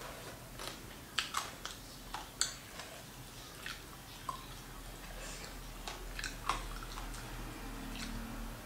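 Close-miked chewing and crunching of fried food. Irregular sharp crunches and mouth clicks come in a cluster between about one and seven seconds in.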